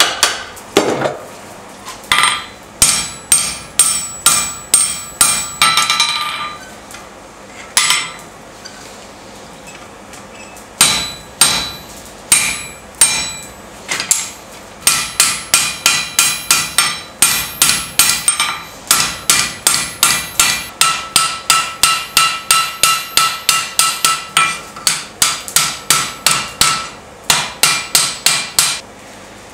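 Hand hammer striking a red-hot iron bar on an anvil in runs of quick blows, about three a second, each leaving a bright metallic ring. There is a pause of a few seconds about a third of the way in before the hammering resumes.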